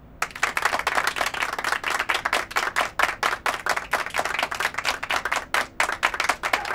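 A small audience applauding, breaking out abruptly a moment in; separate claps from individual hands stand out rather than blending into a wash.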